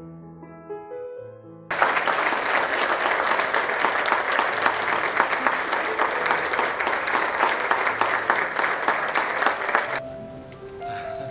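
Background music, then about two seconds in a large audience bursts into applause, loud and dense, for about eight seconds before it cuts off suddenly, leaving the music with faint clapping near the end.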